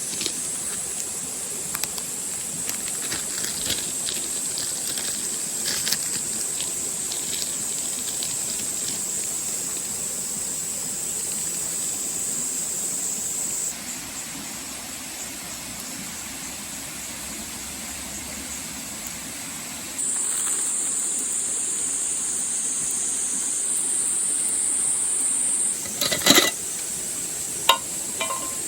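Summer cicadas giving a steady, high, shrill drone, which changes abruptly a few times. There are faint crackles early on and a few sharp knocks near the end.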